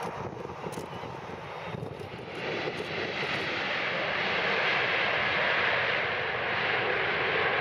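Boeing 747-400 jet engines on the landing rollout just after touchdown. The rushing engine noise swells from about two and a half seconds in as reverse thrust builds.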